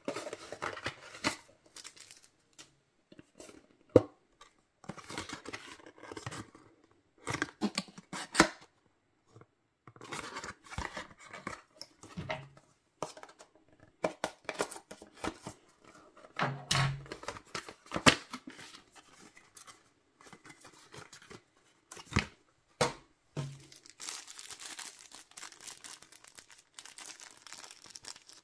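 Cardboard and paper packaging being handled: the tray slid and pulled out of its sleeve, cut at with a folding knife blade, with scraping, tearing and a few sharp clicks. Near the end the thin plastic wrapper around the earbuds crinkles steadily.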